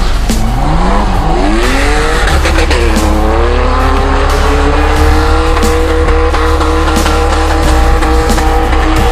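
BMW E30 drifting: its engine revs climb, dip about three seconds in, then rise and hold high while the tyres squeal. Electronic music with a heavy bass line plays over it.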